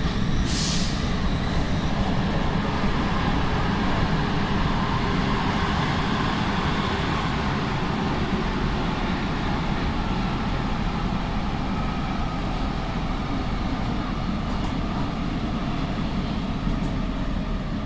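Nuremberg U-Bahn DT1 subway car running, heard from inside the car: a steady rumble of wheels on the track and the train's running noise, with a short hiss about half a second in.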